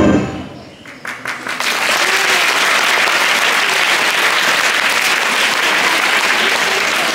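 Backing music fades out, and about a second in an audience breaks into steady applause.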